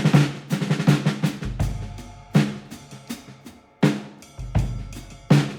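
Background music with a drum-kit beat: snare and bass-drum hits with short rolls.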